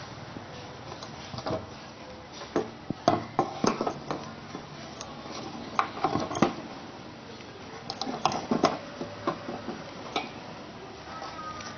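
Several short clusters of sharp clicks and knocks: a car's charcoal (carbon) canister and its pipe fittings being handled and knocked against a wooden bench.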